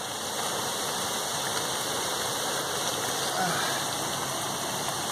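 Steady rushing of falling water, swelling slightly in the first second and then holding even.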